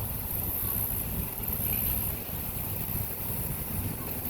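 Steady low hum from rooftop packaged air-conditioning units running.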